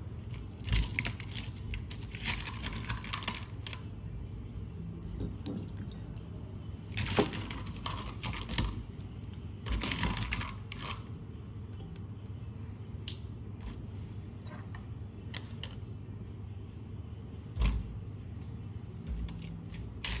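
Cleaned baby squid being tipped into a ceramic bowl: a few bursts of wet sliding and light knocking against the bowl, then scattered small clicks and one sharper knock near the end, over a steady low hum.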